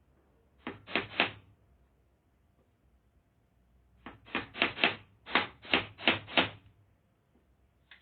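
Hammer driving nails into wood: a quick group of about four blows about a second in, then a steadier run of about eight blows, three or four a second, from about four seconds in.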